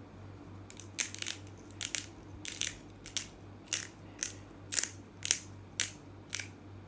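Glass salt grinder twisted back and forth, grinding coarse Himalayan rock salt in short bursts about twice a second.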